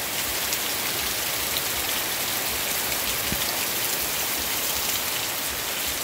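Heavy rain falling steadily on trees, banana plants and bare ground.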